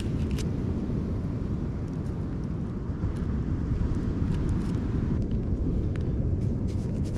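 Steady, uneven low rumble of wind buffeting the microphone on an open beach, with a few faint sharp crackles and clicks from a small driftwood fire being fed with sticks.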